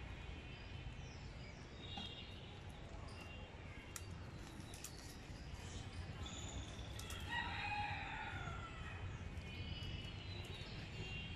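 A rooster crowing once, a long drawn-out call about seven seconds in, with small birds chirping now and then over a steady low background rumble.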